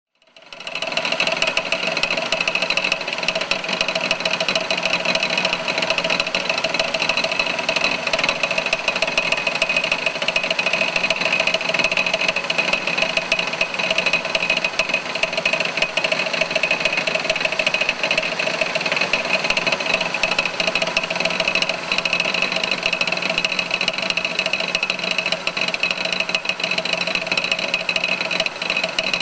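Holden VN Commodore engine running steadily with a horrendous noise and a high ring over it, the sign of a faulty harmonic balancer whose rubber has failed so the centre spins.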